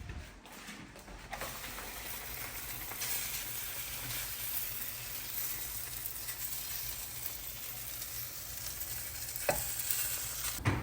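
Roti frying in oil in a pan: a steady sizzle that starts about a second in and grows stronger around three seconds in.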